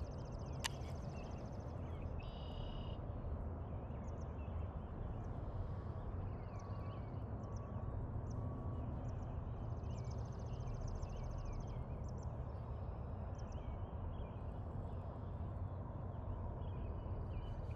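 Outdoor ambience: a steady low rumble with scattered high chirps and trills of small birds. There is one sharp click just under a second in.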